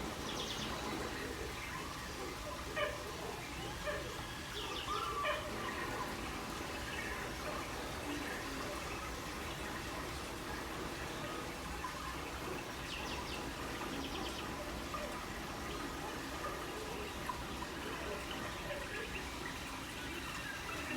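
Steady outdoor background noise with a few short bird chirps scattered through it and a few brief knocks early on.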